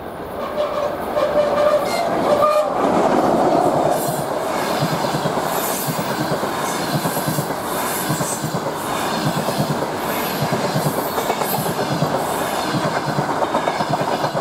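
Passenger train passing through at speed. The locomotive's horn sounds a steady note for about two seconds near the start. Then comes the fast, even clickety-clack of the coaches' wheels over the rail joints.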